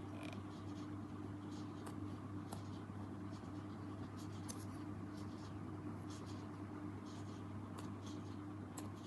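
Soft scratchy rustling with scattered light crackles as squishy foam toys are handled, over a steady low electrical hum.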